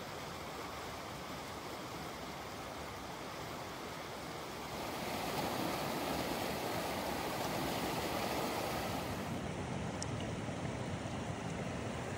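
Fast mountain stream rushing over boulders and through rapids, a steady roar of water that grows louder about five seconds in. The stream is running high and fast.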